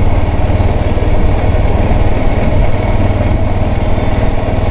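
Voge 650DS motorcycle's parallel-twin engine running steadily under way, with a deep even rumble and no change in pace, heard from the bike's onboard camera.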